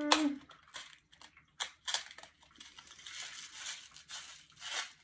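Cardboard Nerds candy box being handled, its second compartment's flap pried open with a few sharp clicks, then a longer stretch of the small hard candies rattling as they are shaken out of the box.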